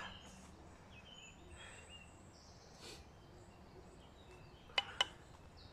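Quiet outdoor ambience with faint bird chirps, and two sharp clicks in quick succession near the end.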